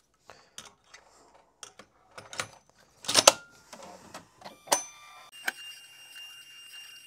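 Ribbon cassette being fitted into a thermal transfer overprinter: plastic clicks and knocks, with a loud clack about three seconds in as it goes home. From about five seconds in, a steady high whine of the printer's motors as it starts its automatic calibration.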